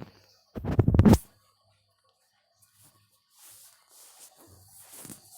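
Hands handling medicine packets close to the microphone: a muffled thump with a sharp click about a second in, then faint rustling.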